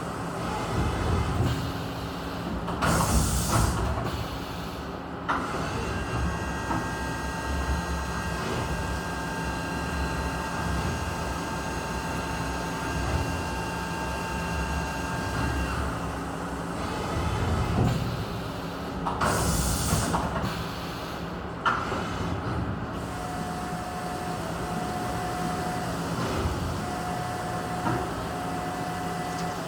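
Vertical machining center running while machining a secondary battery component: a steady machine noise with thin whining tones, broken by two loud bursts of hiss. In the last few seconds a short tone repeats on and off.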